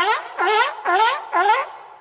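A bird honking: four short calls about half a second apart, each dipping and then rising in pitch.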